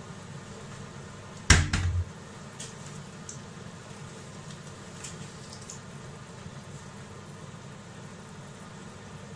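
Fish cake frying in a pot of oil: a steady sizzle with a few faint pops. About a second and a half in there is a single loud knock with a short rattle.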